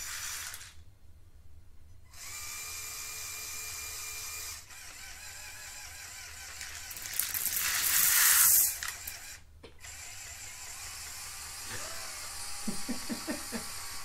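Electric motors and plastic gears of a motorized LEGO Technic Liebherr R 9800 excavator model running in several short spells that start and stop abruptly, the loudest spell about halfway through.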